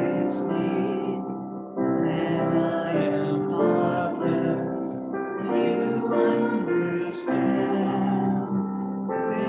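Voices singing a slow hymn with piano accompaniment, the sung words held on long notes.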